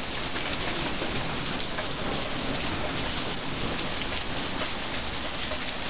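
Heavy rain falling steadily on pavement and into standing water, a dense, even patter of splashing drops.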